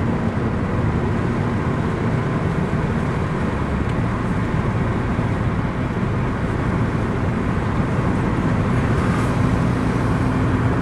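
Steady road and engine noise inside a moving car's cabin, getting a little louder near the end as a low steady hum comes in.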